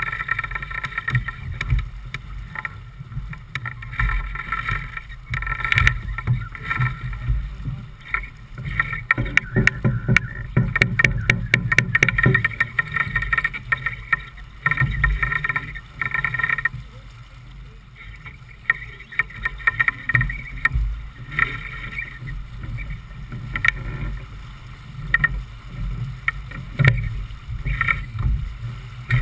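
Wind buffeting the microphone and water rushing along the hull of a J/24 sailing keelboat under way in choppy water, with a quick run of rapid clicks about a third of the way in.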